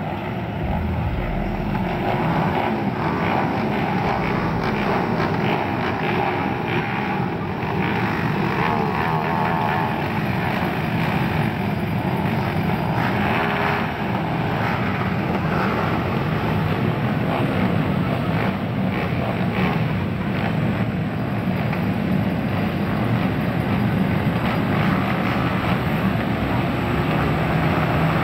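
A pack of motocross dirt bikes lined up at the starting gate, many engines running and revving at once in a steady, unbroken blend, with crowd chatter underneath.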